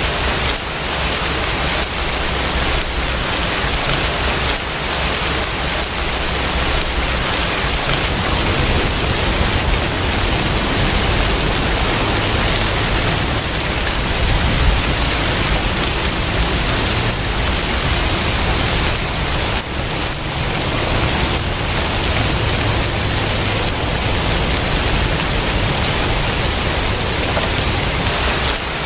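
Rain falling steadily: a dense, even hiss with a low rumble underneath.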